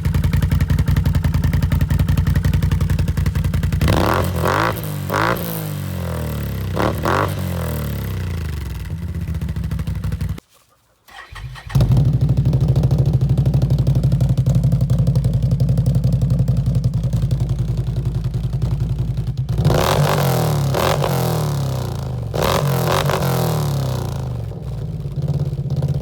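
Can-Am ATV engine with an aftermarket exhaust idling, blipped in a few quick revs a few seconds in and again in a few revs later on. The sound cuts out for about a second around ten seconds in, where the footage is edited.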